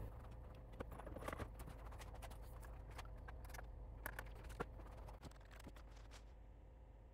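Scattered light clicks and small knocks of a hand handling the open desktop computer, over the steady low hum of the running machine.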